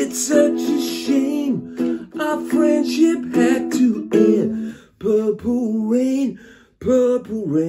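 A man singing in a held, wavering voice over a strummed Mele ukulele; the voice breaks off briefly twice, about five and seven seconds in.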